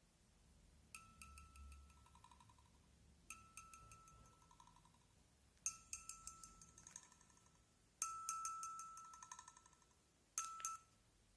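Bright clinking, ringing strikes in five separate groups, each a quick run of taps whose ringing tone fades over a second or two; the fourth group is the loudest and rings longest.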